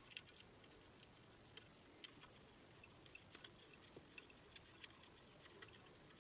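Near silence with faint, irregular light clicks of metal hand tools being handled on a scooter engine.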